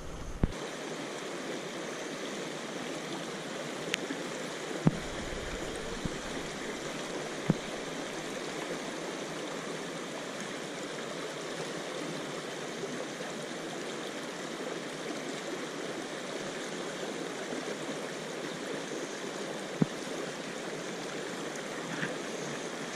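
River water rushing steadily over a shallow rocky riffle, with a handful of short sharp knocks on top.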